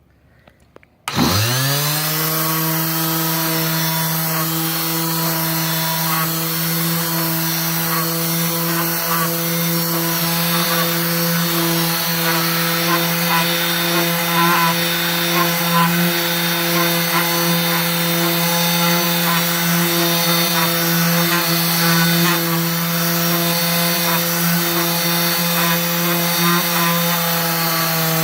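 Electric orbital hand sander switching on, spinning up about a second in, then running steadily while sanding a wooden letter, with a rough rubbing texture over its hum; it begins to wind down at the very end.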